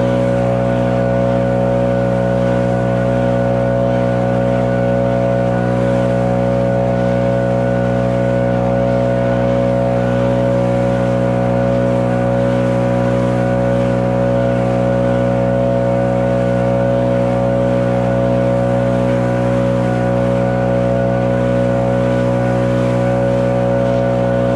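Stihl BR 800 Magnum two-stroke backpack blower running steadily without change in engine speed, blowing wet snow off a driveway.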